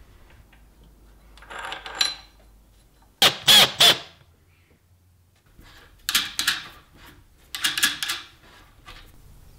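Cordless power driver with a hex socket driving hex-head screws through a galvanized steel plate into a timber block, running in four short bursts, the second the loudest.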